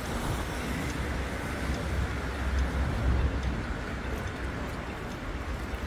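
Pedestrian shopping-street ambience heard while walking: a steady low rumble with a wash of city background noise and a few faint light ticks.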